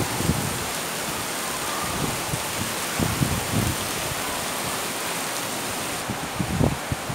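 Heavy rain pouring steadily, a dense even hiss. A few low gusts of wind buffet the microphone now and then.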